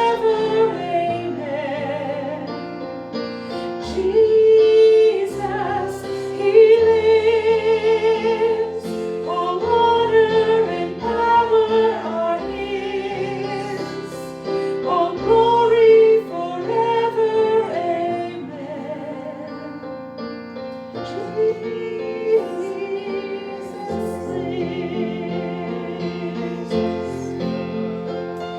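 Music: a woman singing a slow song with strong vibrato over sustained piano or keyboard accompaniment.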